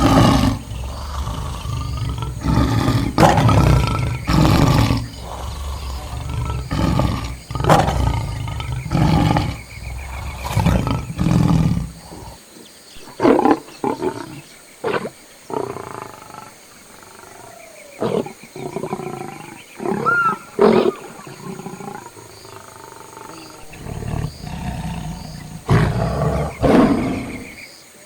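Lions roaring and growling: a rapid series of loud, rough calls through the first twelve seconds or so, then shorter, sparser ones with pauses between them, and a last pair near the end.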